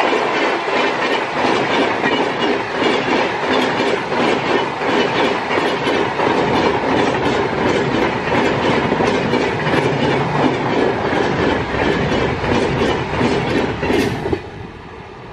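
Coaches of the Sealdah–New Delhi Rajdhani Express rushing past at speed, wheels clattering in a fast, even rhythm over rail joints. The clatter falls away sharply about fourteen seconds in as the end of the train passes.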